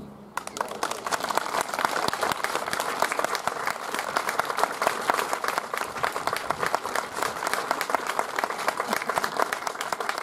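Audience applause at the end of a brass band piece: many hands clapping, starting just after the band's final chord stops and thinning out near the end.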